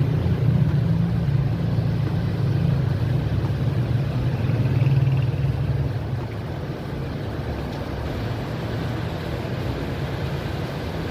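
Kelvinator window air conditioner's compressor running with a loud low hum, then cutting out about six seconds in as the overload protector trips; a quieter steady rush carries on. The tripping is the sign of the compressor drawing high current and overloading.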